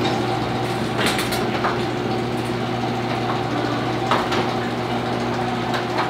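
Garage door opener's motor running with a steady hum, with a few scattered clicks and knocks.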